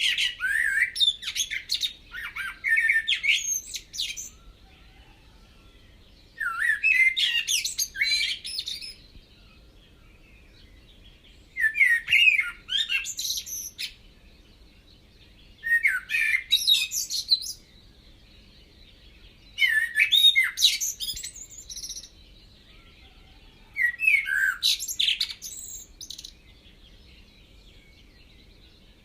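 A songbird singing in repeated phrases of chirps and warbles, each two to three seconds long, coming about every four seconds.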